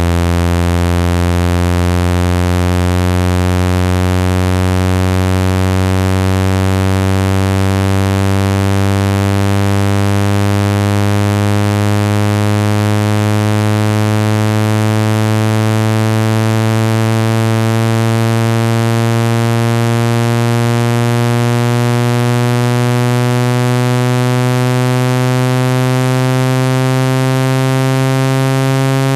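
Speaker-cleaning tone meant to shake water and dust out of a phone speaker: a loud, low, buzzy synthesized tone full of overtones, gliding slowly and steadily upward in pitch.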